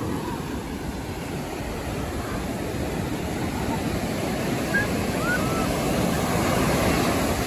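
Ocean surf breaking on a sandy beach: a steady rush of waves that swells a little toward the end.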